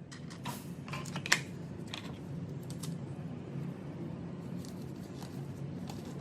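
A string of small sharp clicks and taps, densest in the first two seconds with one louder click a little over a second in, over a steady low hum.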